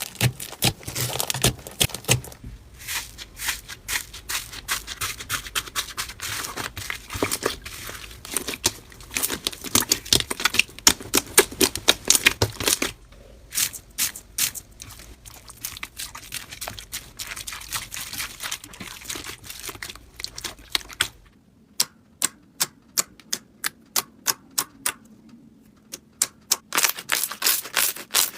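Slime being squeezed and pressed by hand, giving dense crackling and popping clicks. Near the end the pops come separately, about two a second.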